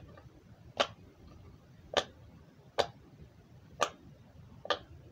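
Tie-dye pop-it fidget toy having its bubbles pressed one at a time: five loud, sharp pops about a second apart.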